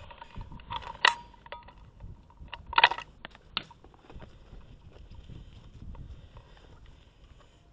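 Gear and rifle handling noise while crouching in grass: low rustling with a few sharp clicks and knocks, the loudest about a second in and just before three seconds.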